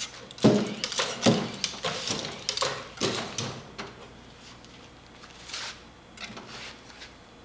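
Feet and metal frame of a powered bipedal walking robot knocking and clattering on a plywood walkway. There are two heavy knocks about half a second and just over a second in, then irregular lighter knocks about twice a second for a few seconds, and a few soft clicks later on.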